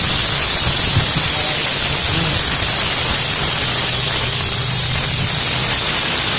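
Compressed air and water blasting out of an open ball valve at the bottom of an air-compressor tank: a steady, loud hiss as the condensate water is blown out under the tank's own air pressure.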